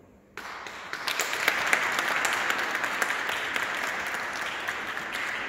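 Audience applauding, starting about half a second in as a dense patter of many hands clapping.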